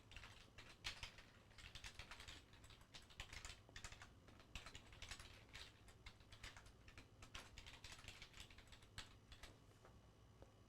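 Faint typing on a computer keyboard: quick, irregular keystrokes that go on for most of the stretch and thin out near the end.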